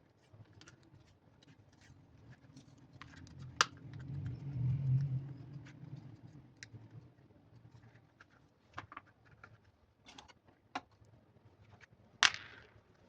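Hands working with small plastic parts: scattered clicks and taps, a low rumble around the middle, a loud click about a third of the way in, and a sharp snap near the end followed by a short rush of noise.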